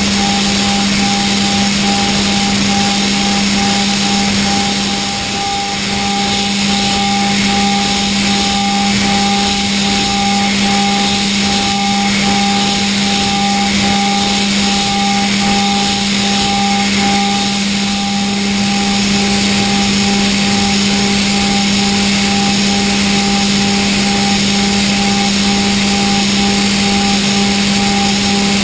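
Okuma GENOS M560V vertical machining centre finish hard-milling D2 tool steel hardened to 62 Rc: a steady, unchanging spindle-and-cutter tone with several pitches over a constant hiss, dipping slightly about five seconds in.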